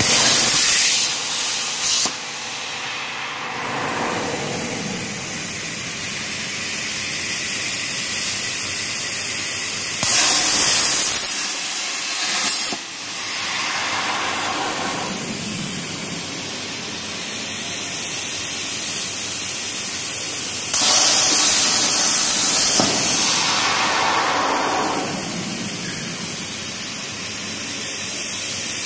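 CNC plasma torch cutting metal plate: three loud hissing bursts of about two seconds each, at the start, about ten seconds in and about twenty-one seconds in. A lower steady hiss runs between them.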